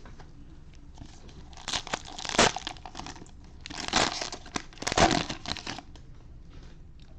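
Plastic cellophane wrapper of a trading-card cello pack being crinkled and torn open, in two noisy bursts: a short one about two seconds in and a longer one from about four to six seconds in.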